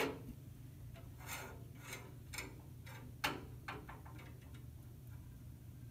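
Metal poise weights being slid and tapped along the notched beam of a mechanical balance beam scale: a series of light, sharp clicks at uneven intervals, with a quicker run of smaller clicks a little past the middle.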